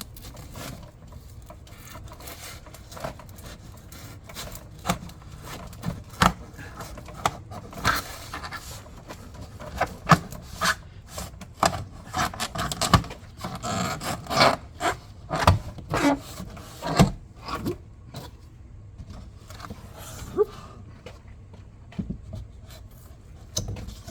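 A cardboard box being cut and pried open with a cutting tool: irregular scraping and rubbing with many sharp clicks and knocks, busiest in the middle stretch.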